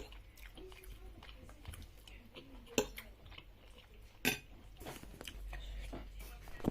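Cutlery clinking against a plate a few times, with sharp clicks about three and four seconds in, between quieter chewing sounds.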